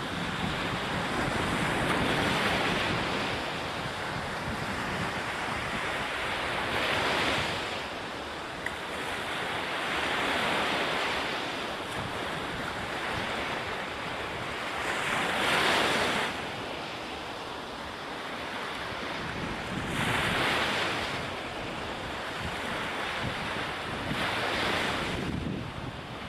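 Ocean surf: waves breaking and washing in, the rush swelling and fading about every four or five seconds, one wave louder than the rest about two-thirds of the way through.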